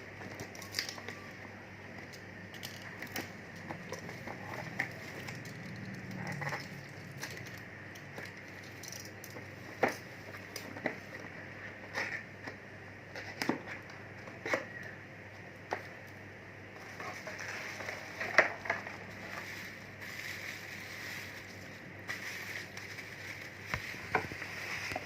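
Scattered light clicks, knocks and rustles of objects being handled, over a faint steady hum.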